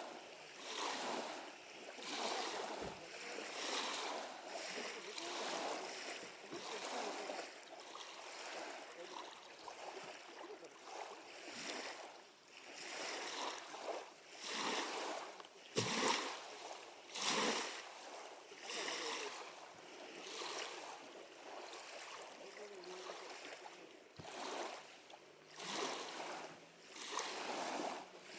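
Small waves lapping at a lakeshore, rising and falling in uneven swells every second or two, with a few sharp clicks now and then.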